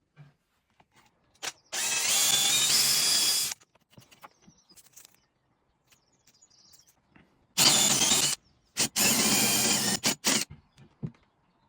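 Power drill boring into a wooden bridle joint to take a dowel pin, run in three bursts: one of about two seconds, then two shorter ones close together later on. Light clicks and knocks come between the runs.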